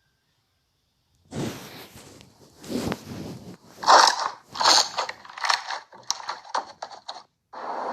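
Slime being squeezed and worked by hand: after a moment of silence, a run of irregular squishy, crackly pops and clicks, loudest about four seconds in.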